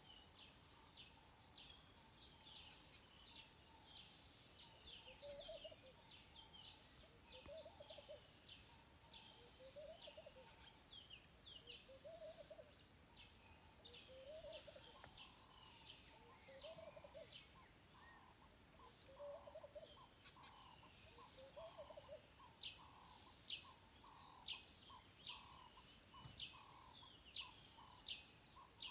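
Faint birds calling in African bush. Quick high chirps go on throughout, a low rising-and-falling call repeats about every second and a half through the first two-thirds, and a mid-pitched note repeats about twice a second through the second half.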